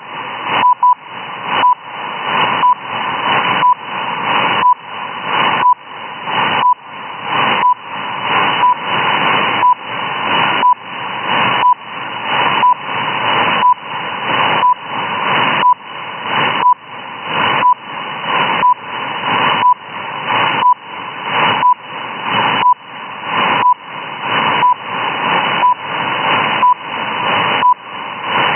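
Shortwave reception of the RWM time-signal station in upper sideband: short beeps about once a second mark the seconds over loud, rushing radio hiss. The hiss drops at each beep and swells back between them.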